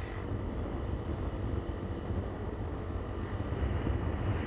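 Wind noise on the microphone of a moving motorcycle, with the bike's engine and road noise underneath, steady throughout.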